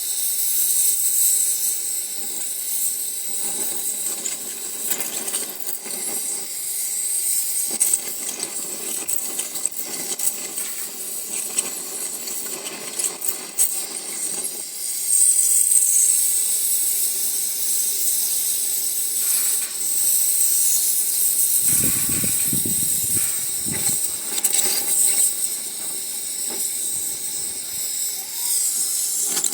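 Oxygen-propane cutting torch hissing steadily as it heats the cast iron around a rust-seized exhaust-manifold bolt to loosen the rust. A brief low rumble comes in about 22 seconds in.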